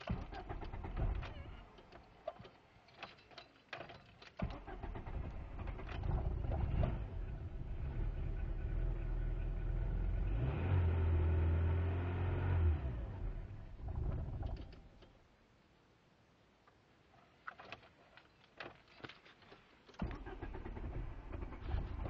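1998 Volkswagen Jetta engine started after a few clicks, revving up briefly, then dying out a little past halfway. After a few quiet seconds and more clicks, it starts again abruptly near the end and keeps running. The owner reports a misfire, an unstable idle and stalling when cold.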